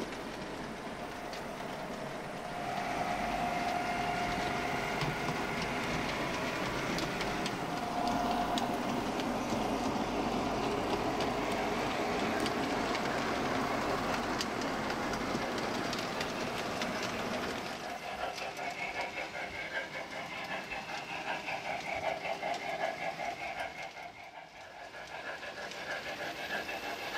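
Model train running on the layout's track, a steady rolling rattle that grows louder about two and a half seconds in and drops back after about eighteen seconds.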